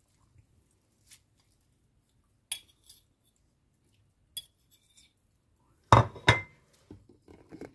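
Cutlery clinking against a small plate: a few scattered light clinks, some with a brief ring, then two louder knocks about six seconds in.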